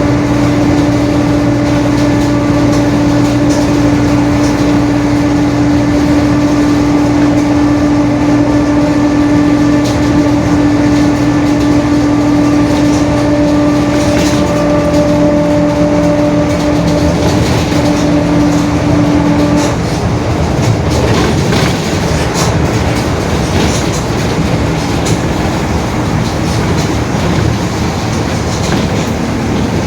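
Mercedes-Benz OF-1721 BlueTec 5 bus under way, its front-mounted diesel and driveline running with a steady drone from the differential, the 'roncando' of a noisy rear axle. The drone stops about two-thirds of the way through, leaving rougher running noise with rattles and clicks.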